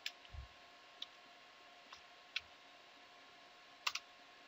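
A few computer keyboard keys clicking at irregular intervals, some in quick pairs, quiet throughout.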